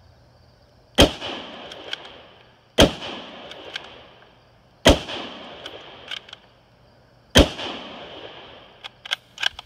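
Four .308 rifle shots from a bolt-action Ruger Gunsite Scout Rifle, about two seconds apart, each followed about a second later by the click of the bolt being cycled. Near the end, a few quick metal clicks as the action is worked.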